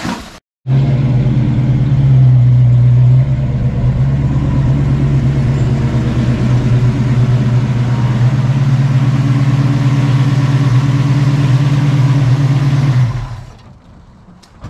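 A Ford 289 V8 engine running steadily. It starts abruptly about a second in, dips slightly in level about three seconds in, and fades out near the end.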